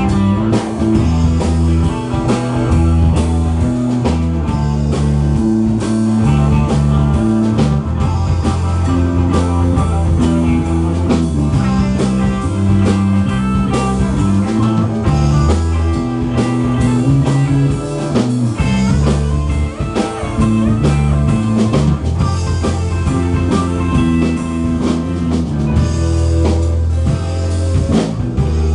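Live band playing an instrumental passage of a rock song, with guitar, a bass line that moves from note to note, and a drum kit.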